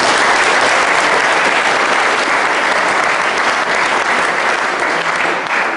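Audience applauding: many people clapping at once, loud and steady, then dying away near the end.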